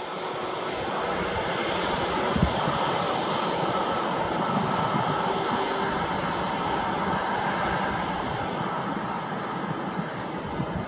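Intercity passenger coaches rolling away over the rails: a steady rumble of wheels on track that grows slightly quieter near the end, with one short low thump about two seconds in.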